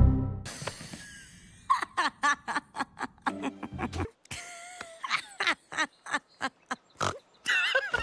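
Cartoon character voices laughing: a woman giggles in repeated short bursts, and a man laughs near the end. It opens with a loud low thud that fades over about a second.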